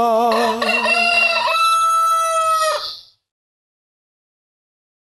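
A rooster crowing once, a single cock-a-doodle-doo about two and a half seconds long that ends on a held note. It begins over the tail of a held sung note, and the sound cuts off to silence about three seconds in.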